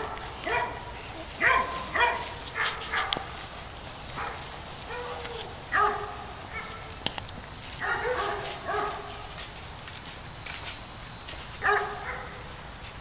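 Repeated short animal calls, like barks and yelps, coming in irregular clusters with pauses of a second or more between them.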